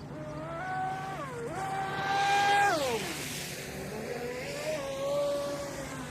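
Brushless electric motor of a Hydropro Inception RC speedboat whining under throttle: the pitch steps up twice, is loudest a little over two seconds in, then drops away sharply near three seconds as the throttle comes off, leaving a lower, steadier whine with a rush of spray.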